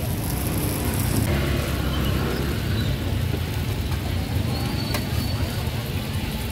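Busy street-food market ambience: a steady low rumble, with faint voices in the background.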